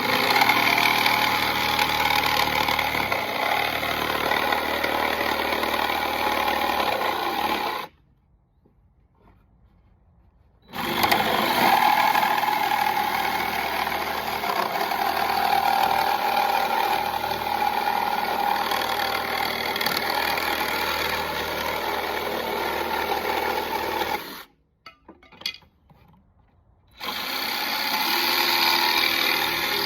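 Craftsman jigsaw cutting wood, its blade running steadily in three long stretches. It stops twice, for about three seconds each time, with a few faint clicks in the second pause.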